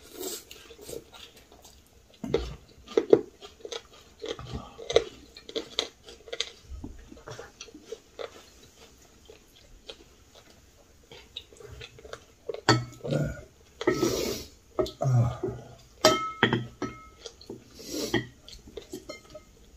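People eating with chopsticks from ceramic bowls: chewing, and many light clicks of chopsticks against the bowls. There are a few louder mouth sounds in the second half.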